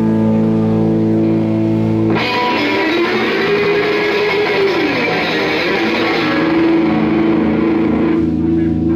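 Live rock band playing: a held electric guitar chord rings, then about two seconds in the full band comes in with drums, electric guitars and bass guitar. Near the end it drops back to a sustained chord.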